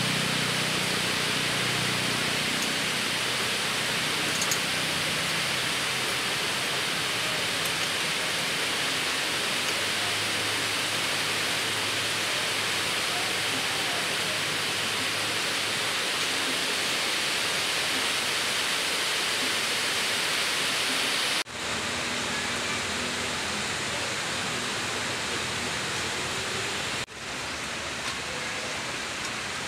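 Steady, even hiss with a faint low hum underneath, broken by two brief dropouts in the last third.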